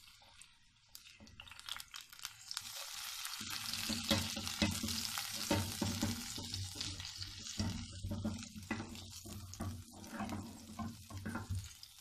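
Chopped garlic sizzling in hot oil in a metal frying pan, stirred and scraped around with a silicone spatula. The sizzle is faint at first and builds up over the first few seconds.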